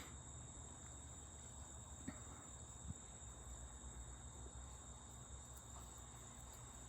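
Faint, steady high-pitched insect chorus, a continuous unbroken trill, with two small ticks about two and three seconds in.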